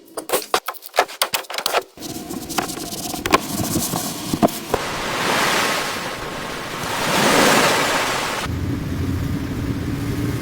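Rapid clicks and knocks, then two long hissing swells that rise and fall, then a car engine starts running steadily about two seconds before the end.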